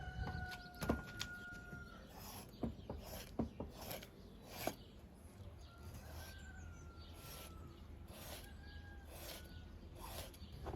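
A rooster crowing in the distance, three long held calls, among scattered short sharp clicks and knocks.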